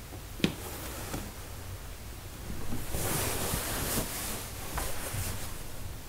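Tarot cards being handled on a wooden tabletop. A sharp tap as a card is set down or straightened about half a second in is followed by a lighter one, then a couple of seconds of paper-like rustling and sliding, with a few light taps near the end.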